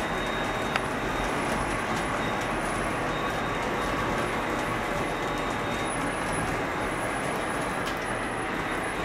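O scale model freight train pulled by an MTH RS-3 locomotive rolling around ScaleTrax track: a steady rumble of the cars' wheels on the rails, with a thin steady whine and a few faint clicks.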